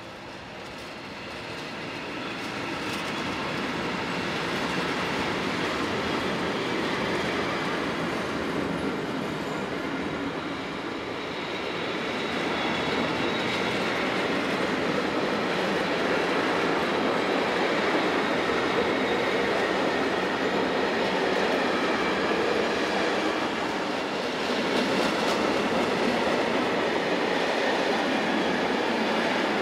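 Freight train passing close by: several electric locomotives coupled together, then a long line of tank wagons, their steel wheels rolling over the rails. It grows louder over the first few seconds, then runs on steady and loud.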